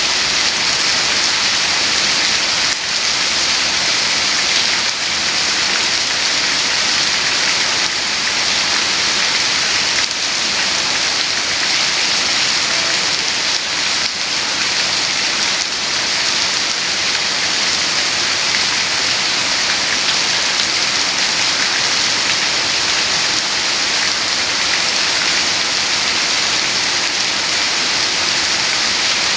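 Heavy rain falling steadily, a dense, even hiss of drops on surfaces.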